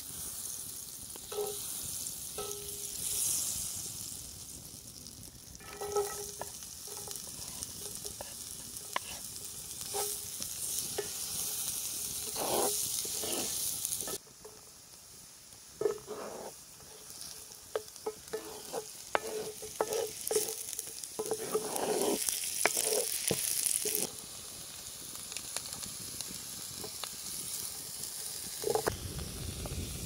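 Butter and then diced onion sizzling in a cast-iron skillet, with a wooden spatula scraping and knocking against the pan as it stirs. The sizzle drops abruptly about halfway through and comes back up a couple of seconds later.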